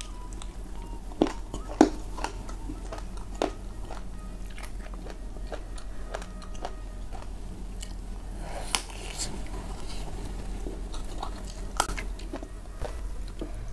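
Close-miked biting and chewing of jengkol (dogfruit) slices dipped in sambal: several sharp crunching bites in the first few seconds, then softer chewing.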